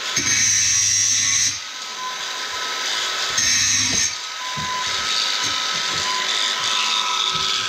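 Handheld angle grinder with a grinding disc working steel, smoothing down the welded end of a drain-cleaning flex shaft. It grinds steadily, with the load easing off and the sound dropping back twice.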